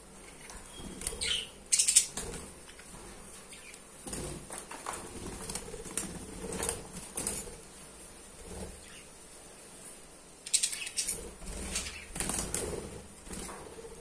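Budgerigars in a wire aviary flapping their wings and scrabbling on the mesh in irregular bursts, clustered early, in the middle and again about two-thirds of the way through, with a few short chirps.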